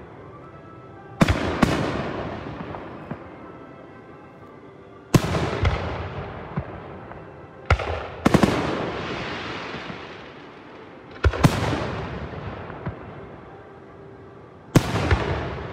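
Aerial fireworks shells bursting: several sharp bangs a few seconds apart, some in quick pairs, each followed by a long fading crackle and rumble. Crackling stars can be seen in the bursts.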